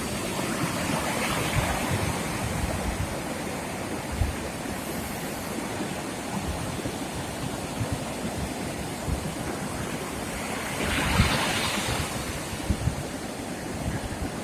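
Sea waves washing onto the beach, with wind buffeting the microphone in low rumbles; one wave breaks louder about eleven seconds in.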